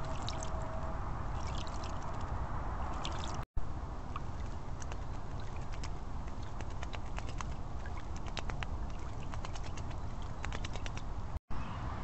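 Small splashes and ticks of water in a shallow drinking bowl, with many short ticks and light rustles from small animals at the bowl, over a trail camera's steady background hiss. The sound drops out completely twice, for an instant, a few seconds in and near the end.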